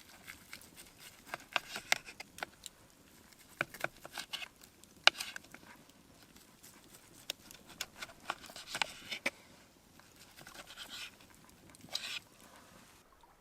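A spoon scraping and clicking against a camp cooking pot in irregular short strokes, as chilli is stirred and served.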